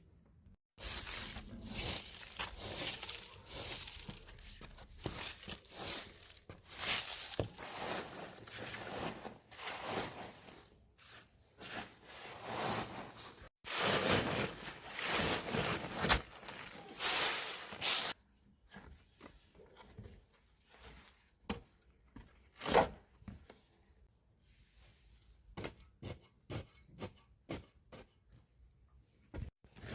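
Irregular rustling and crunching of dry material, dense and fairly loud for the first eighteen seconds or so, then quieter scattered rustles and clicks.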